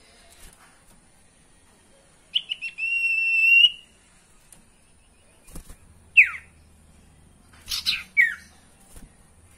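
Common iora (sirtu) calling: a few short notes lead into one long steady whistle, the loudest sound. Later come two quick downward-sliding whistles with short notes between them.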